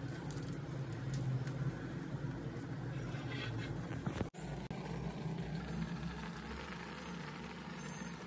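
Steady low kitchen hum, with faint crinkling of a small foil spice sachet being torn open in the first few seconds.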